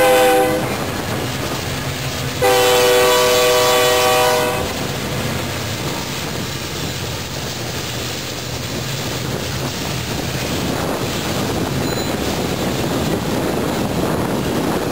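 Freight locomotive air horn, a multi-note chord, sounding a short blast and then a longer one of about two seconds, over the steady rumble and clatter of a Union Pacific freight train rolling past.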